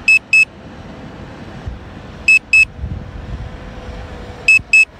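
Electronic double beeps, two short high beeps repeating about every two seconds, the return-to-home alert on the Hubsan Zino 2 drone's controller while the drone flies back in return mode.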